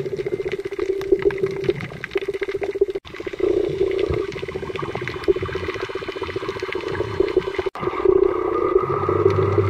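Underwater sound picked up by a camera in a waterproof housing while snorkeling in shallow, rough water: sloshing water and many small crackling clicks over a steady hum. It cuts out for an instant twice.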